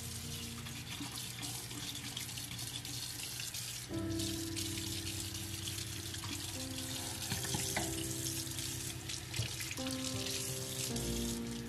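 Tap water running from a kitchen faucet and splashing through a stove grate into the sink as it is rinsed, with background music.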